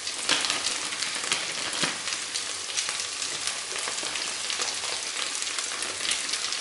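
Chorizo and vegetables sizzling and crackling in hot fat in a pan on high heat, while frozen rice is shaken in from a sachet onto them.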